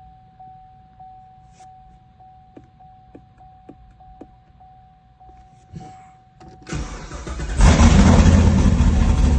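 A steady electronic tone broken about every half second, with four light clicks in the middle. Near the end the Chevrolet Camaro's starter cranks and the engine catches about a second later, then runs loudly and steadily.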